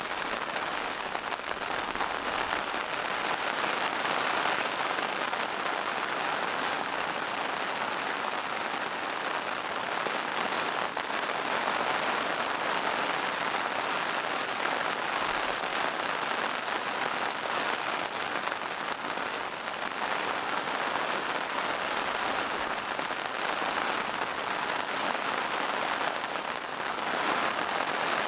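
Steady rain falling in a forest: an even, continuous hiss of drops on leaves, with scattered single drop ticks.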